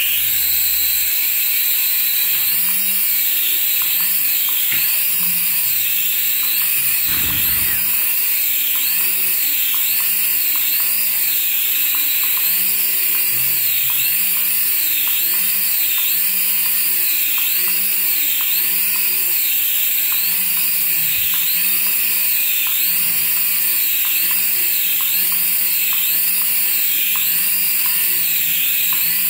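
Battery-powered toy giving a steady high-pitched electric whine, its tone wavering up and down about once a second.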